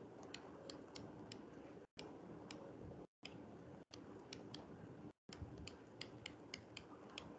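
Faint, unevenly spaced clicks, several a second, of a stylus tapping and scratching on a tablet screen while handwriting.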